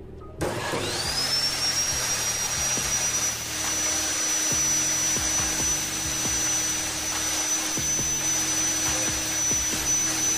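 Bosch GCO 200 cut-off saw's brushed motor switched on about half a second in. Its high whine climbs quickly and then holds a steady pitch as it runs, powered through a series test lamp. After the field coil repair it runs with no problem.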